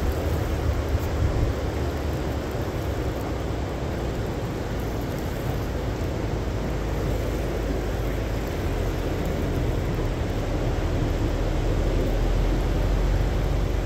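Steady outdoor rumble with a hiss over it and no distinct events, growing slightly louder near the end.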